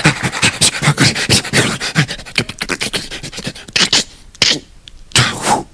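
A man making sound effects with his mouth into a microphone: quick, sharp breathy clicks and puffs several times a second for about four seconds, then a few separate bursts near the end.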